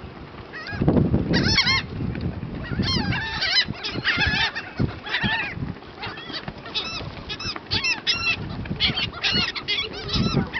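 A flock of seagulls calling over one another in short, overlapping squawks as they crowd in to catch food tossed into the air.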